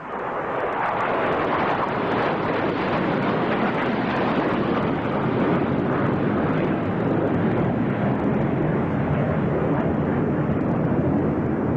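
Jet aircraft in flight: a loud, steady rushing jet engine noise that swells in over the first half-second and then holds level.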